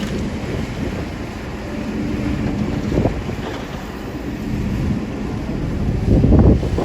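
Kobelco excavator's diesel engine running steadily under load, with a brief knock about three seconds in and a louder noisy rumble near the end.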